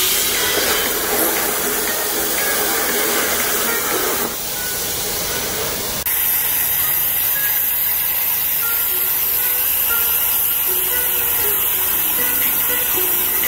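CNC plasma cutter torch hissing steadily as it cuts steel plate; the hiss changes abruptly and grows brighter about six seconds in.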